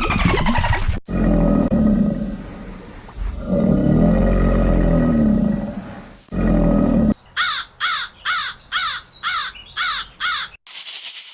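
A big cat's deep roar in long drawn-out stretches, followed by a quick series of about eight short, rising calls.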